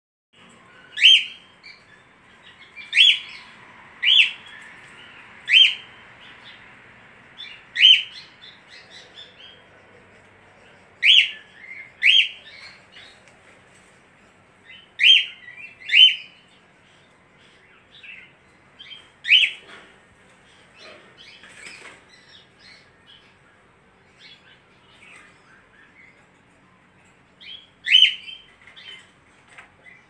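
Caged budgerigar giving about eleven loud, sharp chirps, spaced one to four seconds apart and some in close pairs, with soft twittering between. After a quieter stretch of soft twittering, one last loud chirp comes near the end.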